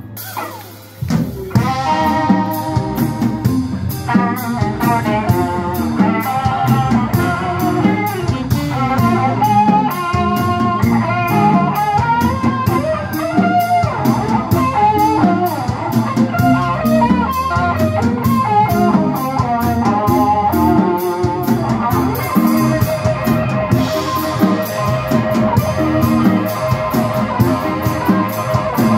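Live electric blues band: after a brief break about a second in, an electric guitar takes a solo over bass, drums and a second guitar.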